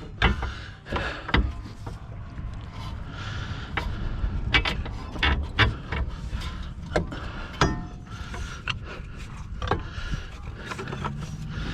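Irregular metallic clanks and knocks of a steel pry bar levering the rear suspension down to seat a new strut.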